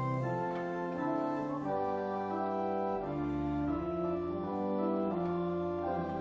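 Church organ playing a hymn in held chords that change about once a second.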